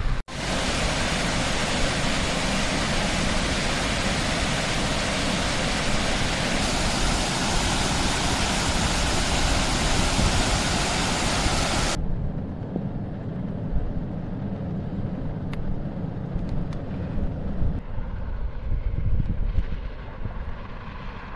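Floodwater rushing and pouring over a washed-out road edge: a loud, steady rush. About twelve seconds in it cuts off abruptly to a quieter low rumble.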